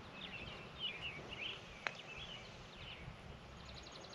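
Birds chirping faintly, with one sharp click about two seconds in and a fast run of high ticks starting near the end.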